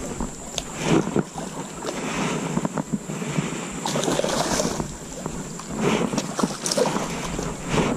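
Water splashing and sloshing around a small boat, with scattered knocks and wind buffeting the microphone. A faint steady high-pitched whine sits behind it.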